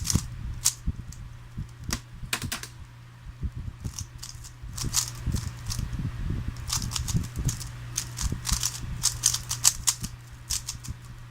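3x3 Rubik's cube being turned fast by hand: plastic layers clicking in quick, irregular flurries, over a steady low hum.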